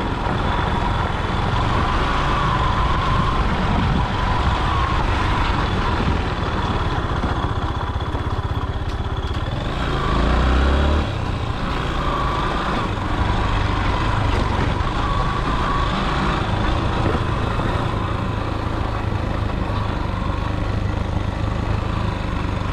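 Yamaha motorcycle running at low speed over a rough dirt road, a steady engine and road rumble. About halfway through there is a brief, louder low rumble.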